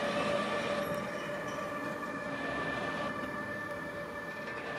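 Two BLS Cargo electric locomotives, a Siemens Vectron Re 475 and an Re 485, running light at low speed, shunting to the depot. A steady electric whine of several held tones from their traction equipment sits over the running noise of the wheels on the rails, getting a little quieter in the first second or so.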